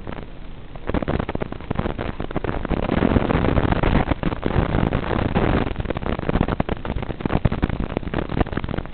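An FPV quadcopter in flight, heard through its onboard camera's analog audio: a rough, crackling rush of motor and wind noise. It swells about a second in, is loudest in the middle as the quad dives over the lawn, and eases off after.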